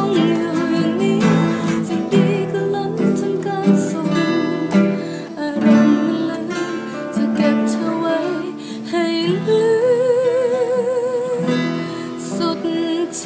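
A woman singing while strumming an acoustic guitar, with a long held note that wavers with vibrato about two-thirds of the way through.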